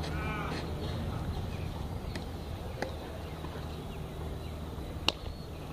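Tennis rally on a clay court: faint racket-on-ball hits about two seconds in and again just under a second later, then one sharper, louder hit about five seconds in, over a steady low hum.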